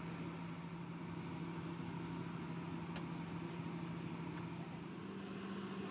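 Steady mechanical hum of a kitchen appliance with a low drone that shifts slightly in pitch near the end, and a faint click about three seconds in.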